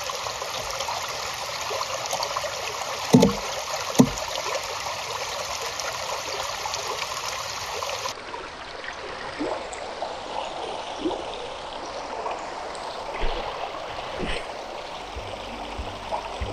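Small woodland stream trickling steadily over rocks. A little over three seconds in come two sharp clicks about a second apart: a Canon DSLR's shutter opening and closing for a one-second exposure.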